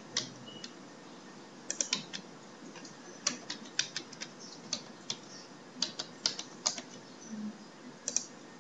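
Computer keyboard being typed on: irregular keystrokes in short bursts with brief pauses between them.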